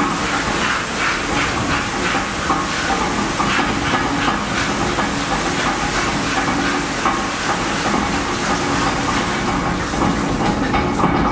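Water spraying under pressure from a simulated pipe leak inside a glass booth, a steady hiss, while the leak is being shut off at a hand valve.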